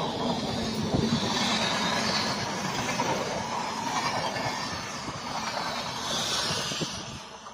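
LHB passenger coaches of an express train passing close by at about 109 km/h: a steady rush of steel wheels on rail with rapid clattering, fading near the end.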